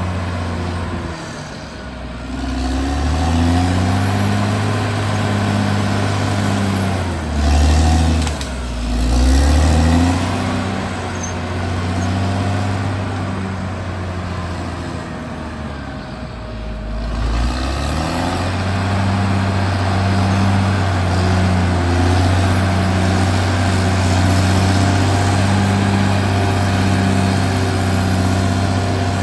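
Caterpillar D6R XL bulldozer's diesel engine working under changing load. Its pitch drops and picks up again a few times as the machine pushes, then it runs steadily.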